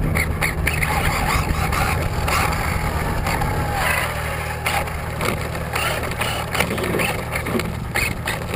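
On-board sound of a brushless HPI Blitz R/C short course truck driving on pavement: a steady motor and drivetrain hum under loud tyre and road noise, with frequent knocks from bumps.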